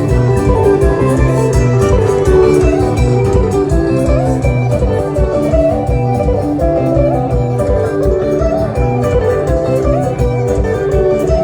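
Band music for dancing: a guitar plays a winding melody over a steady bass line and a regular drum beat.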